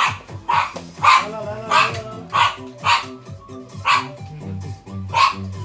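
A dog barking repeatedly, about eight sharp barks with short gaps, over background music with a steady low bass line.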